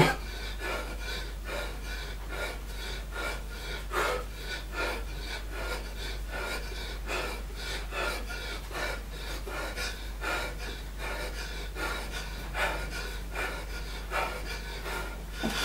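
A man panting hard from exertion during repeated sit-ups, quick short breaths about twice a second, out of breath and worn out.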